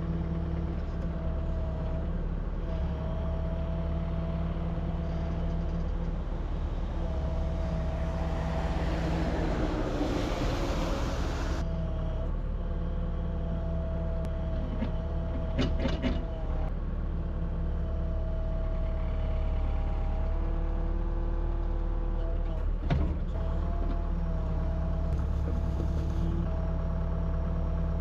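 Excavator diesel engine running steadily under work, with a hydraulic whine that shifts in pitch as the controls move. A rushing hiss lasts about four seconds in the first half, and there are two sharp knocks, one just past halfway and one later.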